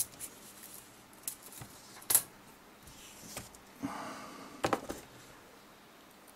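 Plastic IC shipping tubes clicking and clacking as they are handled, then a short rattle and a few sharp ticks as small CH554T chips slide out of a tube onto the tabletop.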